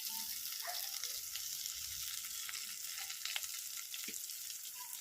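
Food frying in a pan over a wood fire: a steady sizzling hiss with scattered light clicks of stirring.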